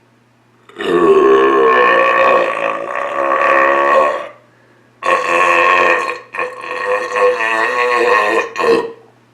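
Long, loud belches, the gas of a Diet Dr Pepper chug: one drawn-out burp of about three and a half seconds, then after a short pause three more, two long and one brief at the end.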